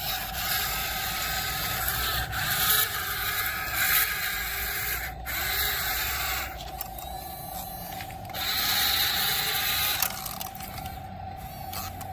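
Radio-controlled toy excavator's small electric motors and gearboxes whirring as it works, under a steady whine that swells and drops as the motors start and stop.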